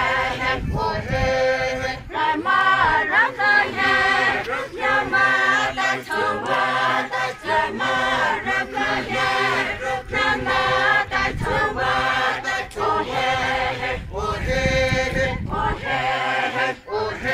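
A group of voices chanting a traditional folk song together in unison. It comes in short repeated phrases with brief breaks between them.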